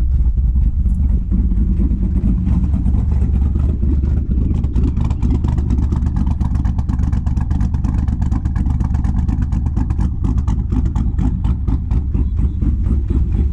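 Chevrolet Corvette C6's LS2 V8, freshly fitted with a stage 3 camshaft, idling on its first start with an uneven, pulsing exhaust note; it runs untuned, and the owner says it desperately needs a tune.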